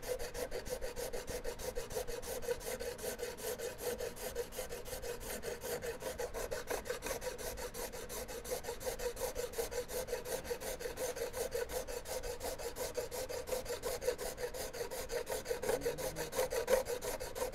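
Shinto rasp filed in quick, even back-and-forth strokes, several a second, across the butt of a wooden shotgun stock, taking hardened acrylic bedding compound down flush with the wood.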